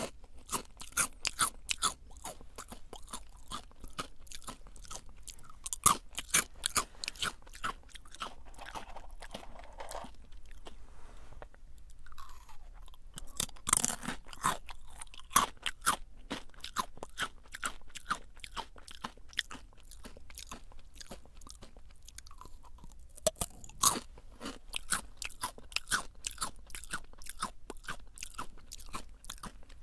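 Close-up chewing of Jagarico, crunchy fried potato sticks: rapid crisp crackles of the sticks being bitten and crushed between the teeth, with a few louder bites now and then.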